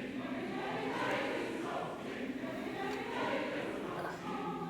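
Background choral music: several voices singing long, held chords.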